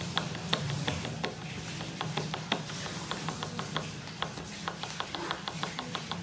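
A paper towel rubbing and crinkling over an oil-soaked, inked rubber roller (brayer) as it is wiped clean, making many small irregular clicks and ticks over a steady low hum.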